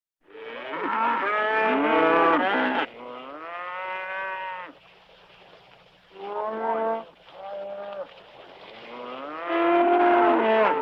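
Cattle mooing: a run of long, drawn-out moos from more than one animal, some calls overlapping, with a short lull around the middle and loud calls again near the end.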